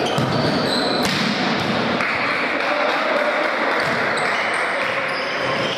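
Futsal play on a wooden sports-hall floor: shoes squeaking in short chirps, a ball struck once about a second in, and players' voices, all echoing in the large hall.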